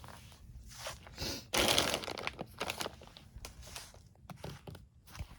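Rummaging through and handling small objects: scattered clicks, knocks and rustling, with a louder rustling scrape about a second and a half in.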